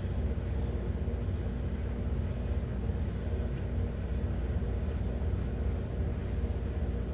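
Steady low rumble with a constant hum, unchanging throughout, like a machine or appliance running in the background; no distinct knocks or clicks.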